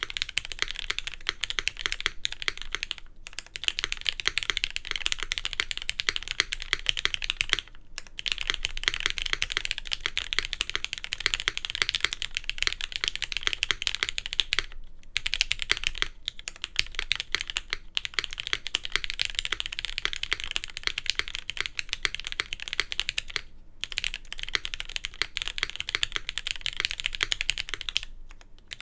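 Fast continuous typing on a mechanical keyboard with Cherry MX Black linear switches on an aluminium plate, a dense clacking of keystrokes broken by a few short pauses.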